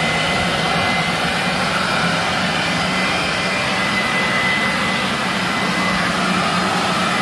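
Ryobi 110 V, 1050 W electric blower-vacuum running steadily in vacuum mode on its low speed setting, a constant motor and fan hum with a thin high whine.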